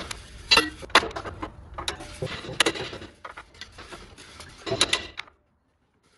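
Steel forage-wagon knife blades clinking and knocking against the metal knife bank as they are handled and slotted back into their spring-loaded holders, a string of sharp metallic clicks and clanks. The sound cuts off suddenly a little after five seconds in.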